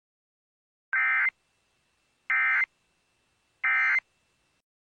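Three short bursts of Emergency Alert System data tones, each under half a second and about a second apart: the end-of-message code that closes a broadcast emergency alert.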